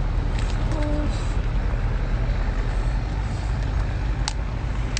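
Cooked crab shell being cracked and pulled apart by hand: a few sharp snaps, the loudest near the end, over a steady low rumble.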